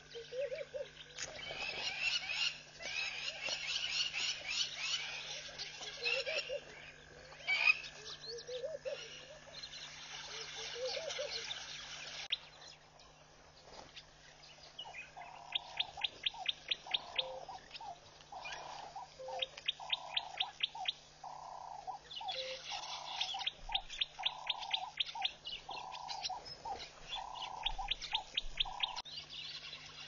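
Wild birds chirping and calling, with short rising frog calls in the first half. Later one bird call repeats steadily, about once a second, over rapid clicking trills.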